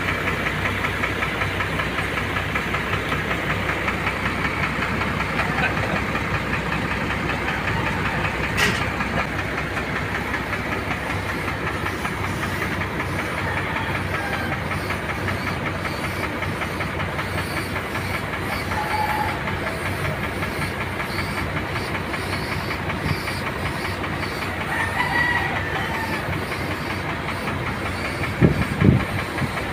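Suction-feed paint spray gun hissing as it sprays, over the fast, even chugging of an air compressor running. A sharp click about nine seconds in and a few knocks near the end.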